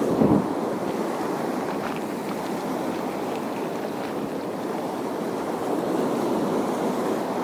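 Waves washing against the shore with wind rushing on the microphone: a steady rushing noise, with one louder surge just after the start.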